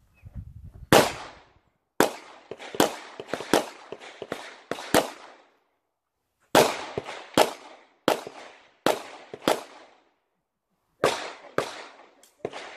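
Pistol shots during an action-shooting stage: sharp reports in quick strings of several shots, roughly half a second apart, with pauses of a second or more between strings as the shooter moves between positions.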